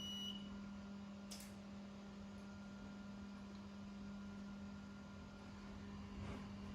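X-ray unit taking an exposure: a short high beep at the start, then a sharp click about a second and a half in, over a steady low electrical hum.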